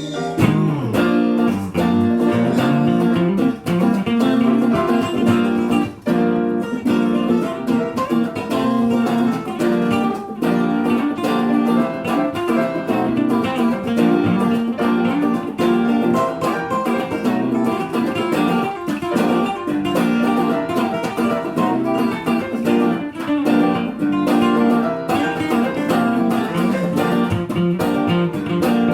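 Live band music: guitars strumming and picking through an instrumental passage, without singing.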